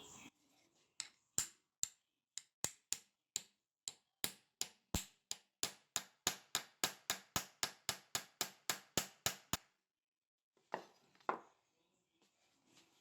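A run of about thirty sharp, light taps, quickening from about two to four a second, then two more after a short pause: a workpiece being tapped on.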